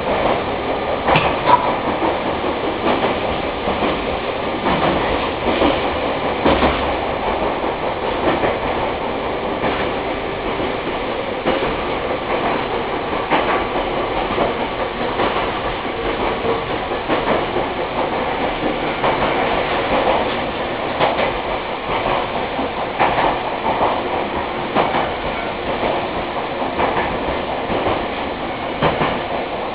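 Running sound of an electric commuter train heard from inside the passenger car: a steady rumble of wheels on the rails with scattered clicks and knocks.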